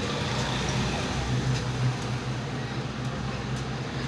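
A steady low engine hum, with a few faint light metallic clicks.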